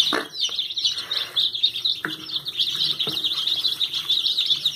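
A brood of ducklings peeping nonstop, many quick high cheeps overlapping, with a few light knocks in among them.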